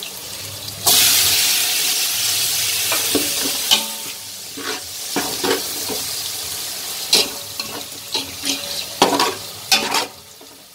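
Sliced tomatoes hitting hot oil in a metal pot of fried onions: a sudden loud sizzle about a second in that slowly dies down. A slotted metal ladle scrapes and knocks against the pot as the tomatoes are stirred.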